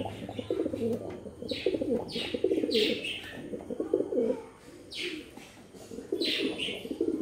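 Domestic pigeons cooing in a throbbing, pulsing way, with several short higher chirps mixed in.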